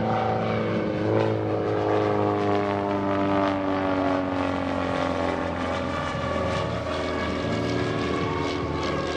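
Christen Eagle biplane's 200-horsepower Lycoming AEIO-360 engine and propeller running loud during an aerobatic pass. The pitch jumps up about a second in, then slides slowly down.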